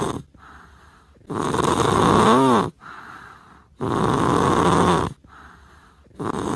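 A sleeping cat snoring loudly, with three long snores about two and a half seconds apart and softer breaths between them. The first snore ends in a brief wavering whistle.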